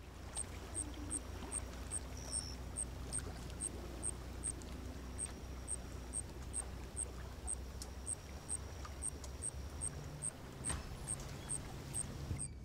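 Lakeshore ambience: water lapping gently against rocks over a steady low rumble, with a short high chirp repeating evenly about two and a half times a second.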